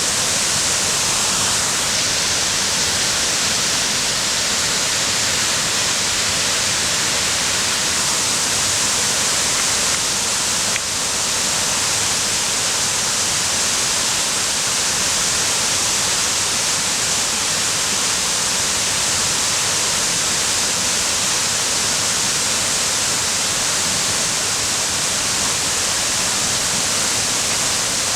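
Waterfall: a loud, steady rush of falling water that dips slightly for a moment about eleven seconds in.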